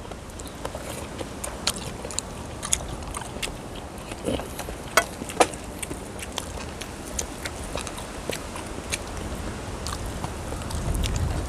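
Eating sounds: scattered clicks and taps, as of utensils and plates, and chewing, over a low steady rumble. Two sharper clicks come about five seconds in.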